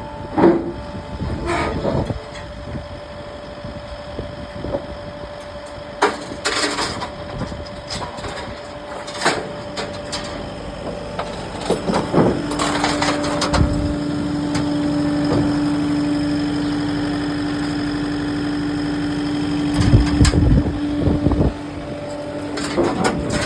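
Tilt-bed truck engine running, with sharp metal clanks and rattles at intervals, typical of loading chains. About halfway through, a steady whine comes in and holds for about ten seconds before cutting off.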